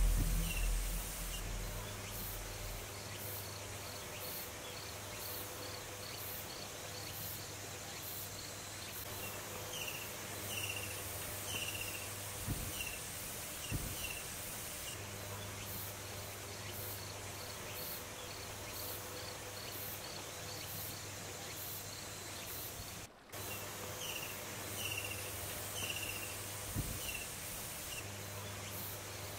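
Quiet outdoor ambience of insects chirping in a steady, fast pulsing rhythm, with a few bouts of short high chirps repeated several times in a row.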